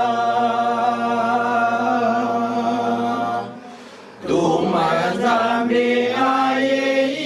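Unaccompanied voices singing a Lingala hymn, holding one long note for about three and a half seconds, breaking off briefly, then carrying on with a moving melody.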